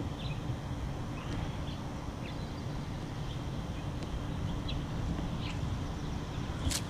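Outdoor background noise: a steady low rumble with a few short, faint high chirps scattered through it, and one sharp click near the end.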